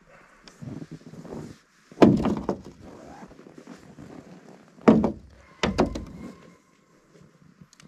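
Three heavy thunks of hard, frozen objects being pulled from under a plastic tarp and knocked down, about two seconds in and then near five and six seconds, with plastic rustling between them. The last knock leaves a brief ringing tone.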